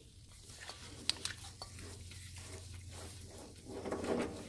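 Faint crunching and clicking of a 1/2-20 threading die being turned by hand in a tailstock die holder, cutting a thread onto a small part held in the lathe chuck, with a louder rubbing scrape near the end.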